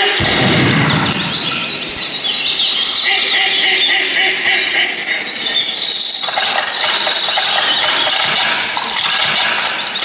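Recorded birdsong, many birds chirping and trilling together in a busy chorus, with a low boom at the very start that dies away over about a second.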